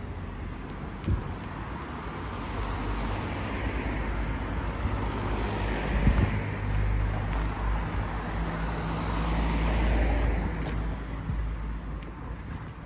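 Cars driving past on a street, their tyre and engine noise swelling and fading as each goes by, the closest pass loudest about ten seconds in. Two short knocks stand out, about a second in and around six seconds.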